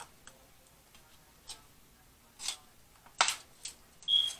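Scattered sharp clicks and scrapes of a knife and fork working seafood in an aluminium foil pan, ending in a brief high squeak.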